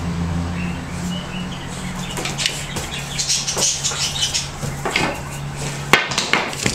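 Broom bristles swishing and scraping on the floor in short, irregular strokes as a Rhodesian ridgeback puppy tussles with the broom, with one sharp knock about six seconds in.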